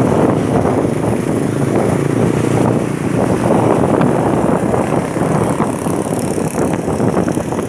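Loud, steady rushing noise of a large road vehicle passing close, with wind buffeting the microphone.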